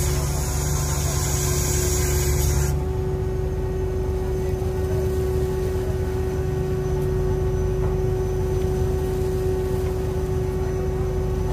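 Fishing boat's engine and deck machinery running with a steady drone and a steady hum tone. A loud hiss over it stops suddenly about three seconds in.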